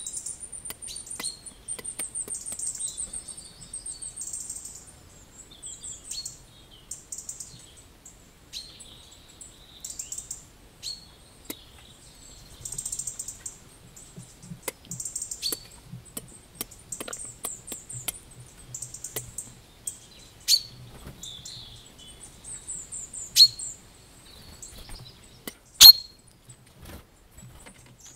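Small songbirds singing in a hedgerow: repeated high-pitched trills and chirps. Three sharp clicks come in the last third, the last and loudest of them near the end.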